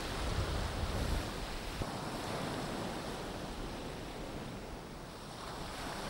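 Sea surf breaking and washing up around the shore in an even, steady wash, with a low wind rumble on the microphone in the first second or so.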